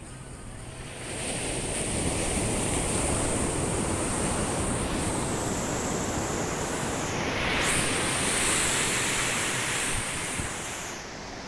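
Sea waves breaking and washing up a sandy beach. The surf swells about a second in and again with a hissing wash of foam about two-thirds of the way through, then eases near the end.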